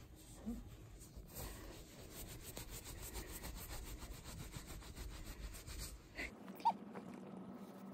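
Towel rubbing briskly over a wet cat's fur as it is dried after a bath: a quick, even run of scratchy strokes. Near the end the rubbing stops and a short high squeak is heard over a low steady hum.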